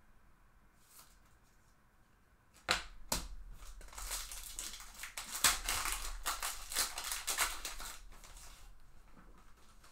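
Foil wrapper of a Bowman baseball card pack being torn open and crinkled by hand: two sharp snaps a little under three seconds in, then about four seconds of crackling as the foil is pulled apart.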